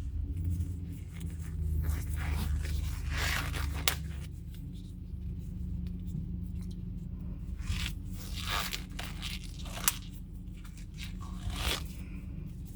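Brake parts being handled on the front hub: a brake rotor going on, with repeated rasping scrapes and two sharp metal clicks over a steady low hum.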